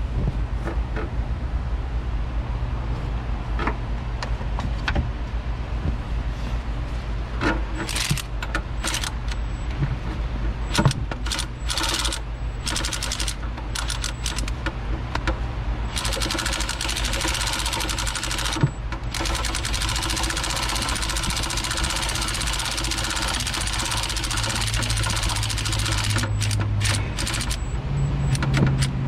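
Hand tools working on the engine during a spark plug change: scattered metal clicks and knocks from the socket and ratchet over a steady low hum, with a denser stretch of rapid clicking and rattling in the middle.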